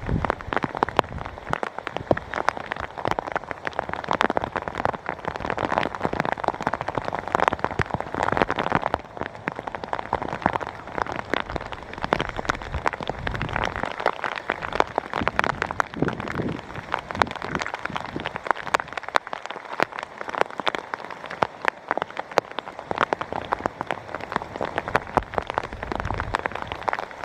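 Steady rain falling, with a dense patter of sharp drop hits close by.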